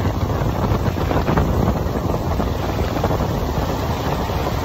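Jet ski running at speed with its wake churning behind, and heavy wind noise buffeting the microphone.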